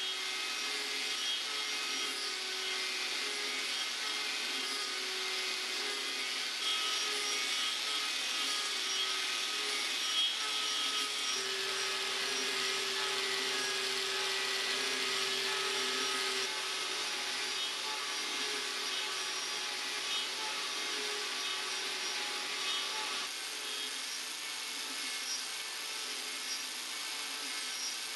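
Angle grinder fitted with a Graff Speedcutter carbide-tooth disc running steadily and cutting hickory spoke stock on a copy lathe. The motor whines over a continuous shaving, rasping noise of the long teeth taking off wood, easing a little about 23 seconds in.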